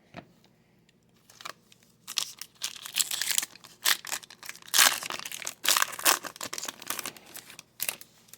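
Thin plastic crinkling and rustling in irregular bursts, starting about a second in, as trading cards are handled in plastic.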